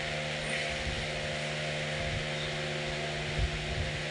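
Steady machine hum over a hiss, with a few low bumps about three and a half seconds in.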